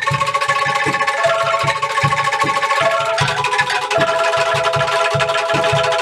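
Ensemble of bamboo angklung shaken in a rattling tremolo, playing a melody in held notes that change every second or so, over a steady low beat.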